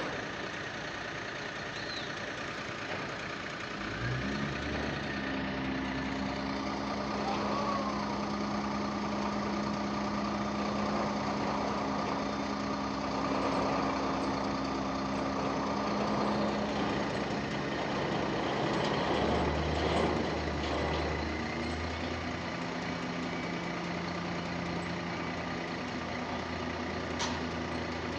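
Diesel engine of a Terex rough-terrain crane running steadily. Its speed steps up about four seconds in and shifts again around twenty seconds.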